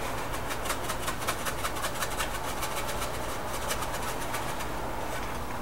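Hand pepper mill grinding black pepper: a rapid run of dry clicks, about six to eight a second, that stops shortly before the end, over a low steady hum.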